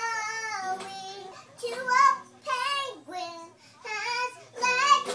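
A young girl singing, in short phrases with held notes that waver in pitch.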